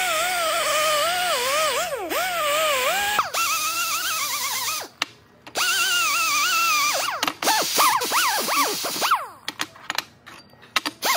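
Air-powered die grinder whining as it works an aluminum motor-mount bracket, its pitch wavering as the bit bites and eases off. It stops briefly about five seconds in, then is blipped on and off several times in short rising and falling sweeps, with a few clicks in the quiet near the end.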